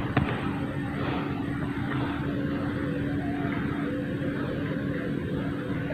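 A motor running steadily at a constant pitch, heard as a steady drone under a noisy hiss.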